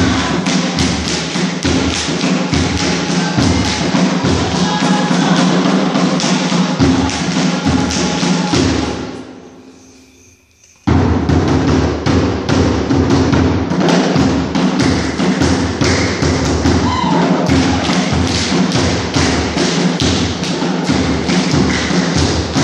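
Loud dance music with a heavy, regular thumping beat. About nine seconds in it fades away to near silence for a second or so, then the music cuts back in suddenly at full volume.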